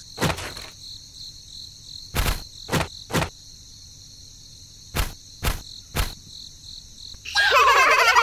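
Crickets chirping steadily, with seven sharp knocks at irregular intervals. Near the end a loud voice with sliding pitch breaks in.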